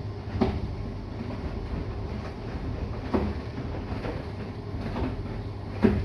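Bosch i-Dos front-loading washing machine mid-wash: a steady low motor hum as the drum turns, with the wet laundry thudding down in the drum three times, the last thud the loudest.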